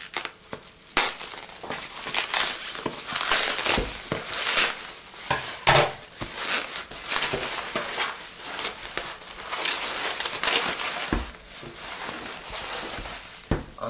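Plastic bubble wrap crinkling and rustling as it is cut with scissors and peeled off a cardboard box, with a few sharper knocks among the rustling.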